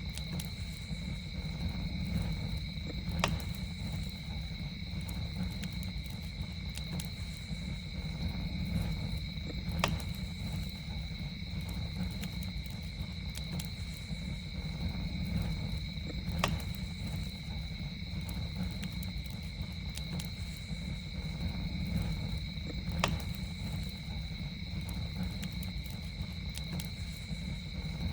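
Campfire burning with a steady low rumble and a single sharp pop about every six or seven seconds, over a steady high trill of night insects.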